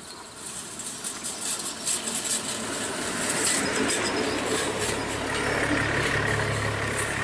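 DB Class 670 double-deck diesel railcar passing close by, the rattle of its wheels on the track growing louder as it approaches. A steady low diesel engine hum comes in strongly about five seconds in as it goes by.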